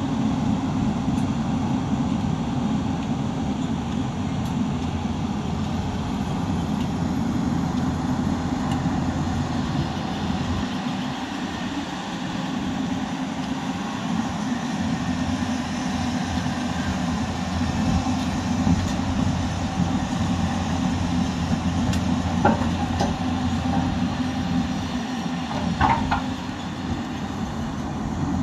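Heavy construction machinery's diesel engine running steadily with a low rumble. A couple of short metallic clanks come near the end.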